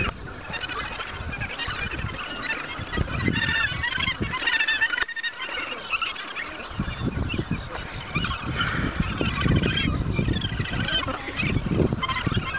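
A nesting colony of Australasian gannets calling: a dense chorus of many short, overlapping calls.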